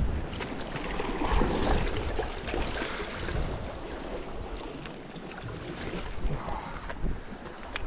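Sea washing and splashing against the rocks at the water's edge, with wind on the microphone and scattered small clicks and knocks.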